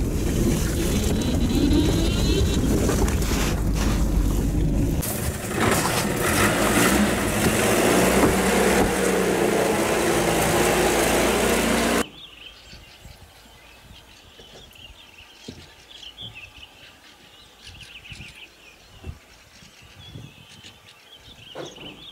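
A loud, dense rumbling noise that cuts off suddenly about halfway through. It gives way to quiet outdoor air with faint bird chirps.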